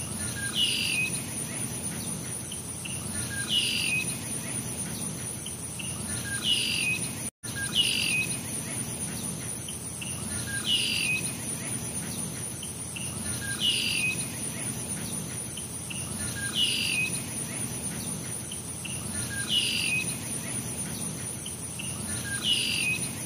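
A bird giving the same short call about every three seconds over a steady high-pitched insect chorus, like crickets. The sound cuts out for an instant about seven seconds in.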